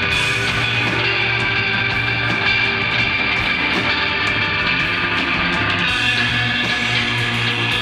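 Instrumental desert rock played live by a guitar, bass and drums trio: held electric guitar notes over a steady bass line, with frequent cymbal and drum hits.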